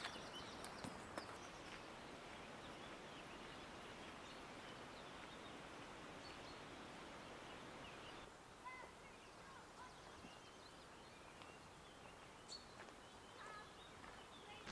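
Quiet outdoor ambience: a steady soft hiss that drops a little about eight seconds in, with a few short bird chirps in the second half.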